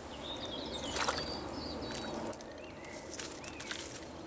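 Water splashing and sloshing at the pond surface as a small hooked rudd is played in on a fly rod, with a few sharp splashes, the strongest about a second in.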